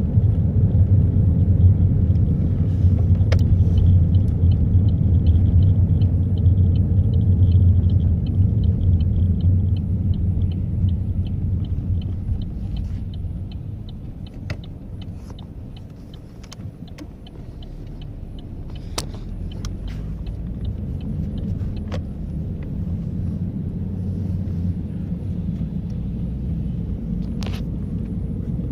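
Car cabin noise while driving: a steady low engine and road rumble that fades about halfway through and then builds again. A run of fast, even faint ticks is heard in the first third, and a few sharp clicks are scattered later.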